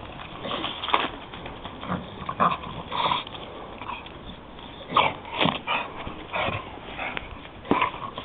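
A Staffordshire bull terrier making short, irregular snuffling and whimpering noises as it noses at and shoves a log.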